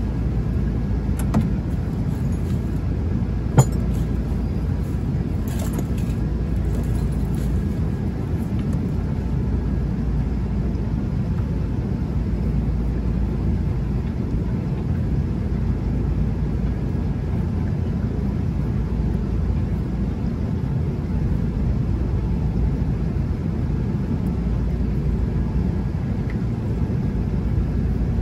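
Steady low rumble of wind buffeting the microphone, with a few sharp clicks in the first six seconds.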